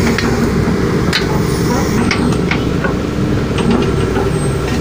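A heavy diesel engine running steadily, with a few sharp metal clinks and knocks from hand tools such as a steel bar and shovel.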